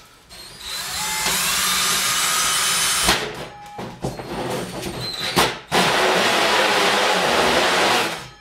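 Cordless drill driving a 5-inch hole saw into the particleboard side of a base cabinet: the motor spins up to a steady whine over the rasp of the teeth cutting, eases off about three seconds in for a few short bursts, then runs steadily again and stops just before the end.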